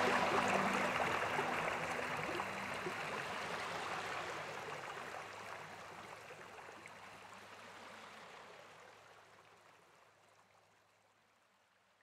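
Steady rushing noise like a flowing stream, fading out slowly to near silence. The last held notes of music die away in the first couple of seconds.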